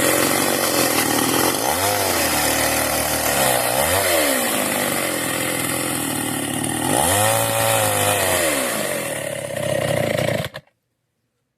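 Kawashima two-stroke gasoline chainsaw running, its engine revving up and falling back three times. The sound cuts off abruptly near the end.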